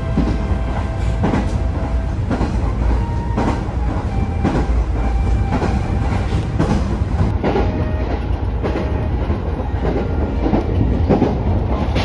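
Electric commuter train running at speed, heard from inside the passenger car: a steady low rumble with the clickety-clack of the wheels knocking over rail joints every half second or so.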